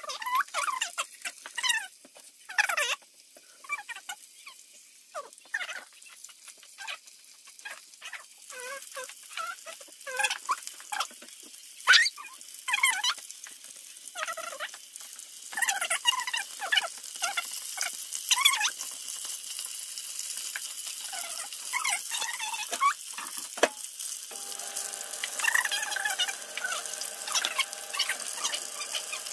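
Breaded chicken strips sizzling in hot oil in a frying pan, with many short, high, squeaky chirps over the sizzle. From about three-quarters of the way in, a steady hum of several tones joins in.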